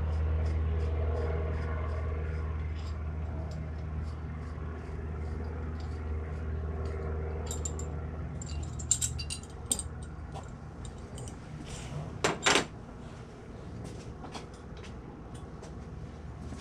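Small metal parts and tools clinking as a dirt bike's throttle housing is taken apart, with a few sharper clanks in the second half, the loudest a double clank about twelve seconds in. Underneath runs a steady low hum that slowly fades, and a light ticking about three times a second through the first half.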